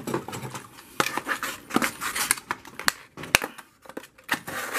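Stiff clear plastic lure packaging being cut and pried open with a knife: irregular sharp clicks, snaps and crackling of the plastic, one snap a little past three seconds in louder than the rest.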